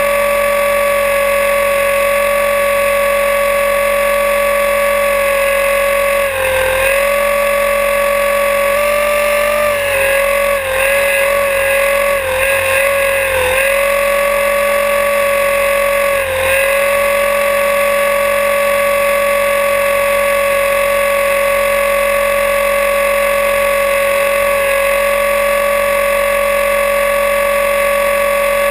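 Align T-Rex 500E electric RC helicopter heard from a camera on its own frame: the steady whine of its brushless motor, gears and rotor. The pitch dips briefly about six seconds in, wavers up and down between about nine and fourteen seconds, and dips once more around sixteen seconds.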